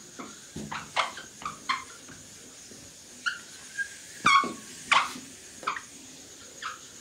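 A duster wiping a whiteboard, squeaking in short high squeals on its strokes, about eight times at irregular intervals.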